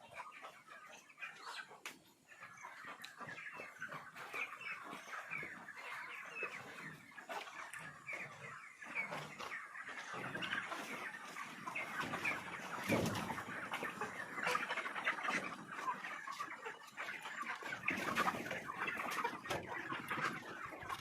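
A flock of chickens in a poultry house, many birds clucking and chattering at once in a continuous din.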